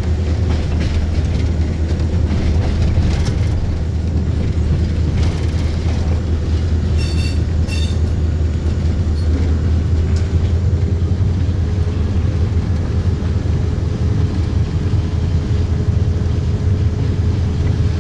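Diesel locomotive running, heard from inside the cab: a steady low engine drone with the wheels rumbling on the rails. Two brief high-pitched tones sound close together about seven seconds in.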